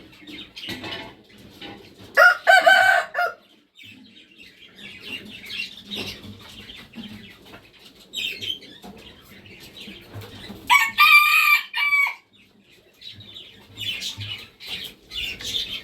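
Red junglefowl rooster crowing twice, about eight seconds apart, each a short crow of just over a second, over softer, steady bird calls and clucking.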